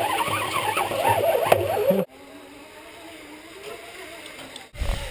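Zipline trolley pulleys running along a steel cable: a rushing whir with wind noise for about two seconds, then cut abruptly to a quieter, steady whine that wavers gently in pitch.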